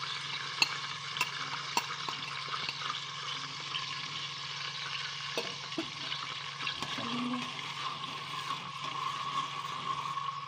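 Chopped onion sizzling in hot oil in a pot, a steady frying hiss. A few sharp clicks of a spoon on the pot come in the first couple of seconds and again midway as it is stirred.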